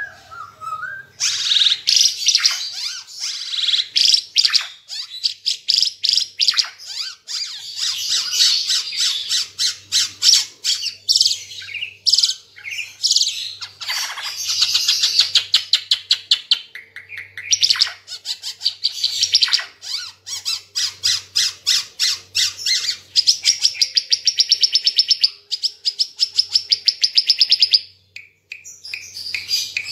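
Ara Timor (Timor green figbird) singing continuously and loudly: long runs of fast repeated notes and chatter, broken by brief pauses.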